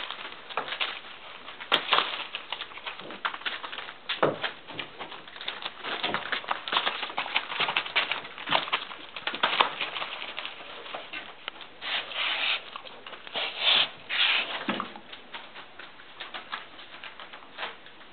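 Puppies scampering over newspaper: an irregular patter of small paws and crinkling, rustling paper, with a few louder rustles.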